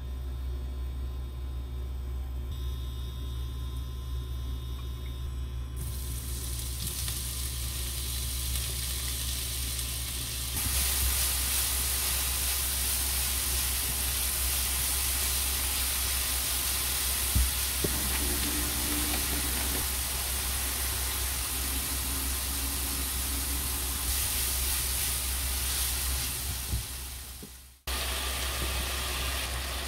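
Chopped vegetables sizzling in oil in a frying pan as a spatula stirs them. The sizzle comes up after a few seconds, jumps louder about ten seconds in, and drops out briefly near the end.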